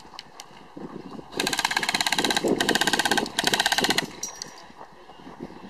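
Airsoft electric rifle firing on full auto in two bursts, one of about two seconds and a short one of about half a second, each a fast, even stream of shots.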